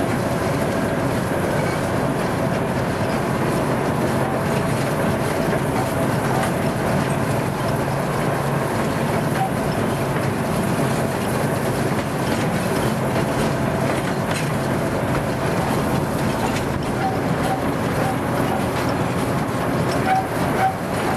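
Narrow-gauge train running steadily on its rails, wheels clicking over the rail joints, heard from an open wagon.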